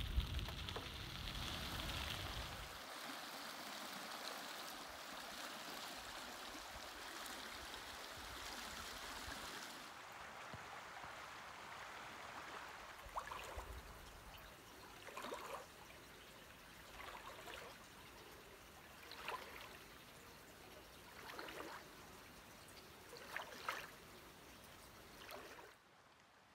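Creek water flowing steadily, fainter after about ten seconds, with a short swish repeating about every two seconds in the second half.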